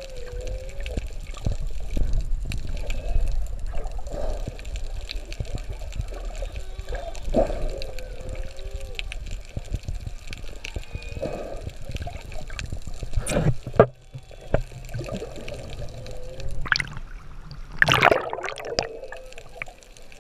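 Underwater sound picked up by a submerged camera: a steady water rush with low rumble and scattered clicks, and faint moaning tones that rise and fall every few seconds. Two louder bursts stand out, one about two-thirds of the way in and one near the end.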